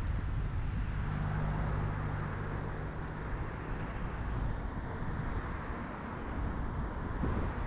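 Road traffic: a steady wash of tyre and engine noise, with a car engine's low hum that fades out about four seconds in.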